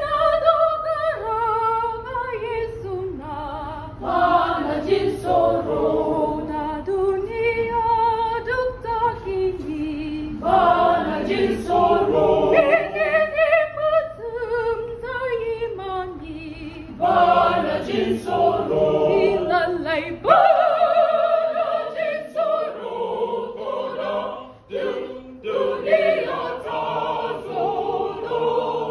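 A small choir of young voices singing together without instruments, several voices moving at once in harmony.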